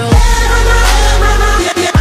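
Loud electronic dance music with a deep bass that drops with a sharp downward slide just after the start and again near the end, then holds under the beat.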